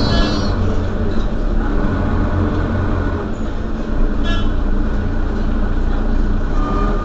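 Mercedes-Benz Citaro Facelift city bus engine running steadily, with a short high-pitched tone about four seconds in.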